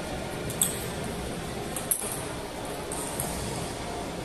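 Table tennis ball clicking sharply off bat and table, a few separate clicks more than a second apart, over the steady murmur of a large hall.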